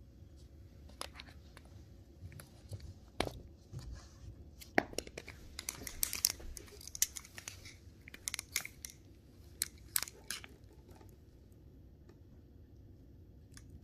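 Shetland Sheepdog puppy gnawing and chewing on a small white toy, with irregular crunches and clicks of teeth on it.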